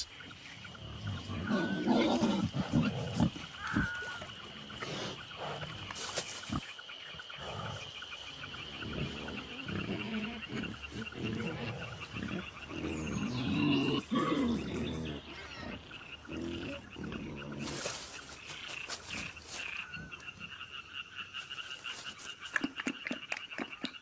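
A wild animal calling again and again in short, low calls, over a steady high-pitched trill.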